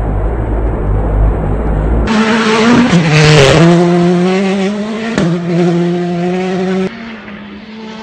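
Hyundai i20 R5 rally car's turbocharged four-cylinder engine pulling hard on gravel, its pitch dropping and climbing again at gear changes about three and five seconds in, with a burst of gravel and tyre noise at the first. The first two seconds hold only a low steady rumble, and near the end the engine turns quieter and more distant.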